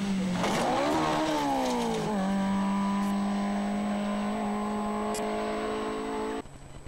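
Hillman Imp rally car's small four-cylinder engine at high revs. About a second in the pitch flares up and falls back, then it holds steady and strained. The sound cuts off suddenly near the end.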